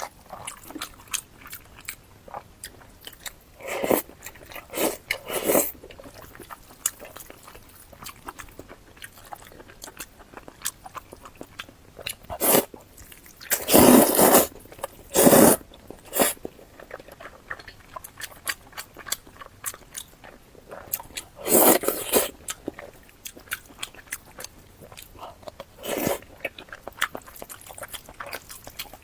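Close-miked eating of braised-pork rice soup with a fried egg: chewing and small wet mouth clicks throughout, with about half a dozen louder bites or crunches.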